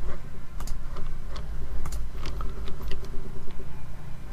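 Irregular clicking at a computer, a few clicks a second, over a steady low hum.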